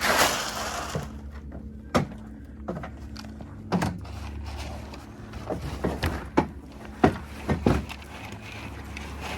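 A brief rush of noise at the start, then a string of sharp, separate knocks and clunks, over a steady low hum.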